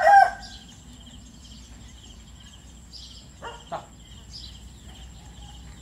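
A rooster crowing, its crow ending with a falling note in the first moments. Then rural yard ambience follows, with faint bird chirps and a steady high-pitched hum, and two short calls about three and a half seconds in.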